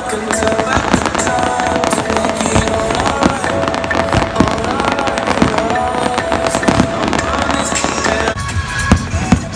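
Fireworks bursting and crackling in quick succession over loud music.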